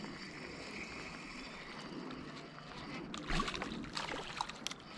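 A hooked fish splashing at the water's surface as it is reeled in: a run of short, irregular splashes about three seconds in, over a steady background hiss.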